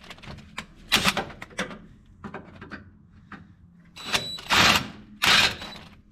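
Power drill with a 1/2-inch bit run in reverse in short bursts in a metal hole to smooth it out, with scraping bursts and clicks as the bit rubs in the hole; the longest bursts come near the end.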